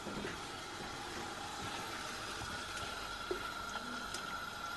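Cooking oil poured in a thin stream from a plastic jug into an aluminium pot: a faint, steady trickle, over a faint steady hum.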